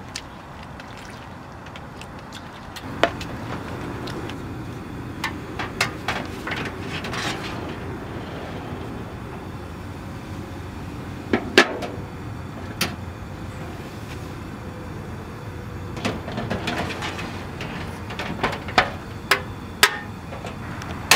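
Oil fan heater running with a steady low hum, with sharp clicks and knocks scattered through it as its plastic fuel tank is lifted out and handled; one knock about halfway through is the loudest.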